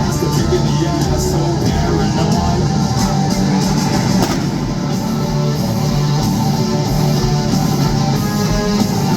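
Rock band playing live at a concert: electric guitars and drum kit, loud and continuous, with no singing.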